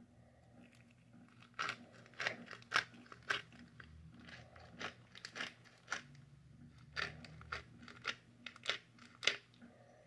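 Pepper being put onto bacon-wrapped venison steaks: a run of irregular, short crunchy clicks over several seconds.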